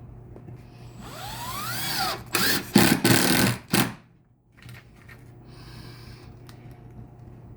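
Power drill driving a screw into a birdhouse panel. The motor whines up in pitch for about a second, then a few short trigger bursts seat the screw, and it stops about four seconds in.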